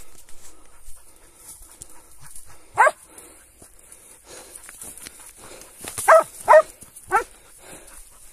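Tracking dog barking at a wild boar it has brought to bay in the brush: four short, loud barks, one about three seconds in and three more in quick succession near the end.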